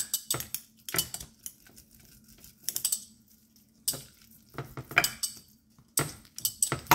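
A metal meat tenderizer pounding thin raw steaks on a plate: irregular bursts of knocks and metallic clinks, with short quiet pauses in the middle.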